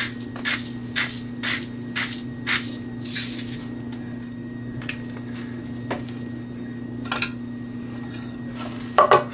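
Hand-twisted spice grinder seasoning meat, crunching in regular strokes about twice a second for the first few seconds. After that come a few scattered clicks and a louder knock near the end, likely utensils on a plate, over a steady low hum.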